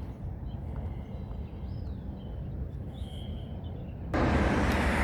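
Outdoor ambience: a low rumble with a few faint, short bird chirps. About four seconds in, a much louder steady rushing noise starts abruptly and holds.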